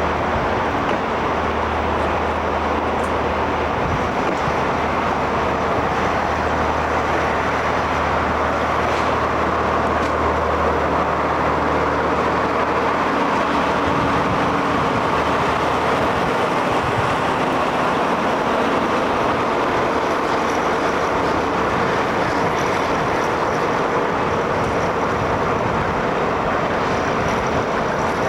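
A vehicle engine running steadily amid loud traffic and rolling noise, its low hum dying away about halfway through while the noise continues.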